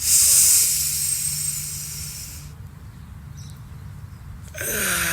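A woman's long, audible exhale, a loud breathy rush that starts suddenly and fades away over about two and a half seconds. Another breathy sound begins near the end.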